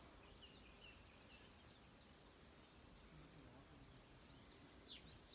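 Steady high-pitched insect chorus with short falling bird chirps scattered through it, a few more prominent near the end.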